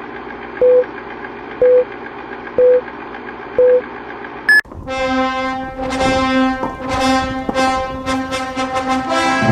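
Film-leader countdown sound effect: a steady whirring hiss with a short beep once a second, four times, then a single higher beep. Music starts right after it.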